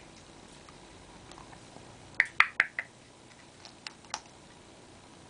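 Parrot making a quick run of four short, sharp clicking sounds a little over two seconds in, then two fainter clicks about a second later.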